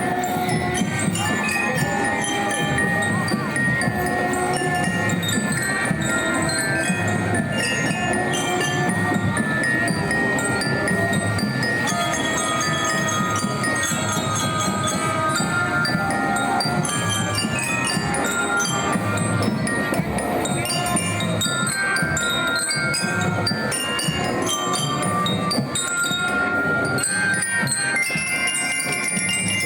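Music with a melody of short, bell-like notes on tuned metal percussion over a dense, busy low backing, running steadily and loud.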